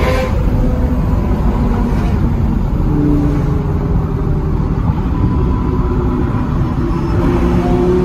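Supercar engines and road noise heard from inside a car's cabin at freeway speed, a steady low rumble with the engine note rising and falling a little.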